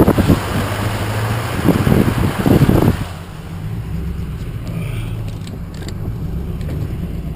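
Motor vehicle running: gusty wind noise on the microphone for about three seconds, then a sudden drop to a steady low engine hum.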